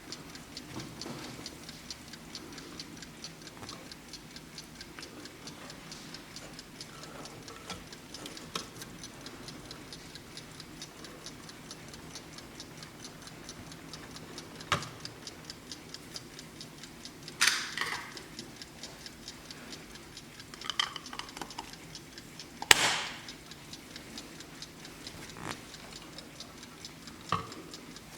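Vintage German Blessing alarm clock ticking with a quick, even tick. A few louder knocks and clunks break in now and then, the loudest about two-thirds of the way through.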